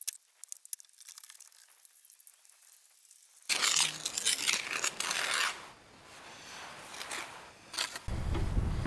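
Lime mortar being scraped and pressed into the joints of a stone wall with a pointing trowel: gritty, scratchy scraping strokes, faint at first and louder from about a third of the way in. Near the end a low rumble of wind on the microphone comes in.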